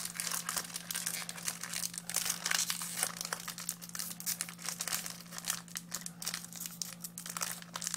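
Foil booster pack wrapper crinkling and crackling without a break as hands work at tearing it open; the pack is hard to open.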